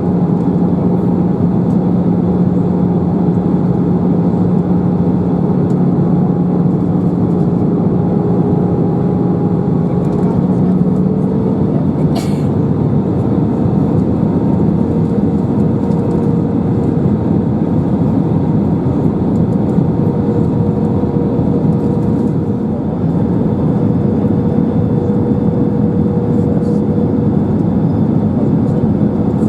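Cabin noise of an Airbus A319 in flight: a steady jet-engine drone and airflow rush with a constant hum. About eleven seconds in, the engine tones shift slightly higher, and a sharp click follows a second later.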